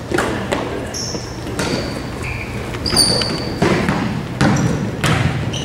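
Basketball game sounds on a hardwood court: the ball bouncing in sharp knocks and sneakers squeaking in short high chirps, several times, echoing in a large gym.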